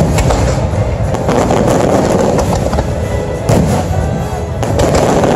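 Fireworks going off in a rapid string of bangs and crackles over the loud music soundtrack of a fireworks show.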